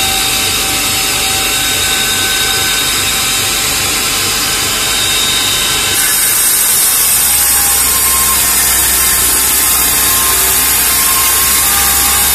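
CRT mechanical cutting machine running with a steady rushing hiss. About six seconds in its motorised cutting head bites into the CRT glass at the seam between funnel and screen: the sound turns harsher and grinding, and a low hum joins it.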